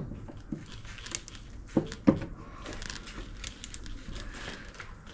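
A screwdriver working a wedge in under a window frame to raise one side: scattered scraping and light clicks, with two sharp knocks about two seconds in.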